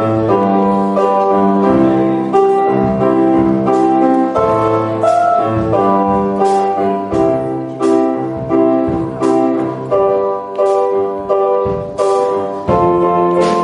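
Keyboard playing sustained chords on a steady beat, as an instrumental introduction.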